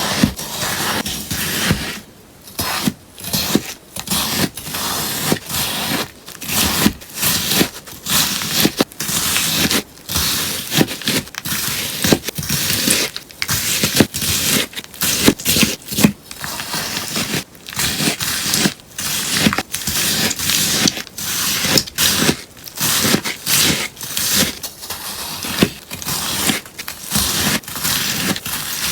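A sponge being cut over and over, a steady run of crisp, crunchy cutting strokes about one or two a second with short pauses between them.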